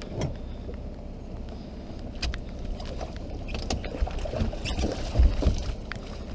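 Steady low rumble of wind and water on a small open fishing boat in rain, with scattered ticks and knocks from rod, reel and landing-net handling as a fish is landed; the loudest knock comes about five seconds in.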